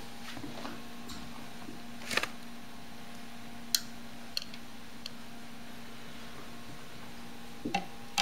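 A few sharp clicks and taps from gerbils moving about their cage, scattered over several seconds, over a steady low hum.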